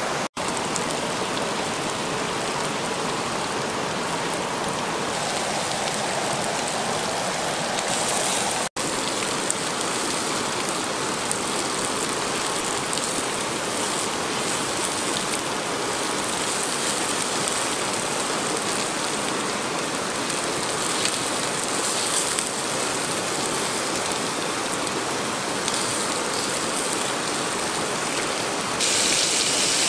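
Steady rush of a flowing river, an even hiss of water that breaks off for an instant twice and turns brighter near the end.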